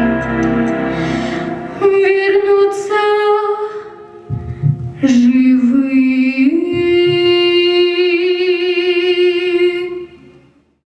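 A woman singing the closing notes of a song over a soft instrumental backing. It ends on a long held note with vibrato that fades out near the end.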